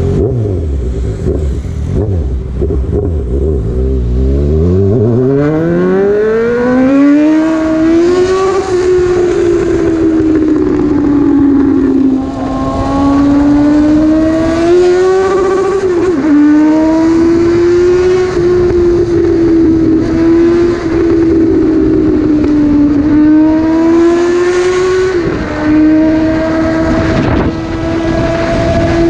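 Motorcycle engine pulling away at low revs, then rising steeply in pitch as it accelerates hard, and settling into a fairly steady high-speed run with two brief dips in pitch. Wind rushes over the helmet-mounted microphone.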